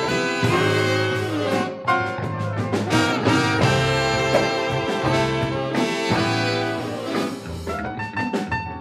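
Jazz music with saxophone and brass over a steady bass line, easing a little in loudness near the end.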